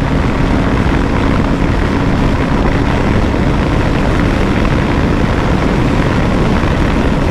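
KTM 390 Adventure's single-cylinder engine running flat out in sixth gear at about 158 km/h, buried in a loud, steady rush of wind noise over the microphone.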